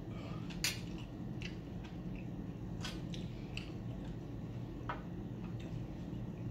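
Eating sounds as a man eats baked catfish: scattered short, wet chewing and smacking clicks, about one a second, the loudest about two thirds of a second in, over a steady low hum.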